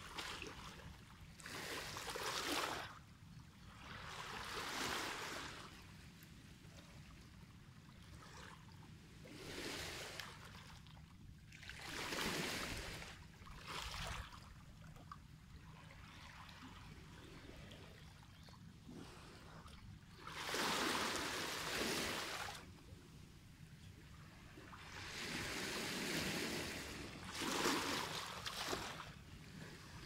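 Small sea waves washing in and out over a stony shore, a soft rush of water every few seconds, some swells longer and louder than others.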